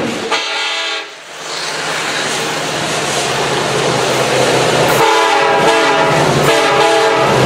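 Train horn sounding three blasts over a steady low running hum: one short blast right at the start, then two more about a second and a half apart near the end.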